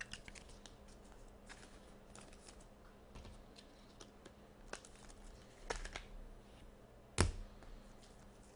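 Hockey trading cards handled and shuffled by hand: faint scattered clicks and taps of card on card, the sharpest about seven seconds in, over a faint low steady hum.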